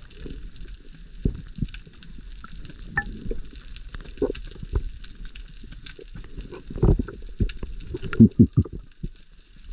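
Underwater sound picked up by a camera in its housing: a faint steady crackling, typical of snapping shrimp on a reef. Irregular low thuds and gurgles of water moving against the housing run under it, with the heaviest cluster about seven to eight and a half seconds in, as a cloud of bubbles passes.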